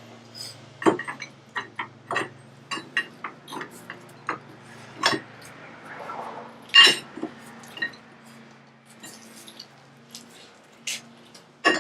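Metal tools and parts clinking and clicking irregularly while a wheel hub bearing is being fitted, with one louder clank about seven seconds in. A faint steady low hum runs underneath.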